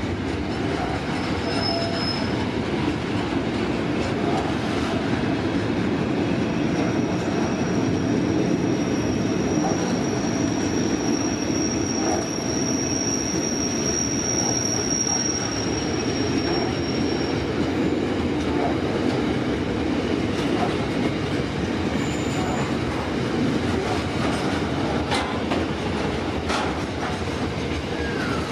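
Container wagons of a long intermodal freight train rolling past, a steady rumble of wheels on rail. A high, thin wheel squeal holds for about ten seconds in the middle, with shorter squeals near the start and later on.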